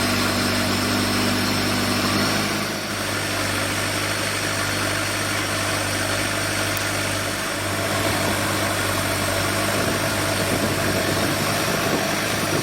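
An engine running steadily, a continuous low hum with a slight change in tone a few times.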